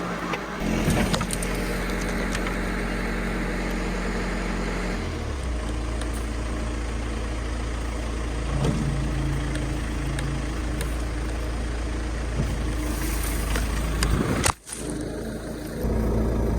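John Deere backhoe's engine running steadily as it works, its note shifting about five seconds in. Near the end the sound cuts out sharply for a moment.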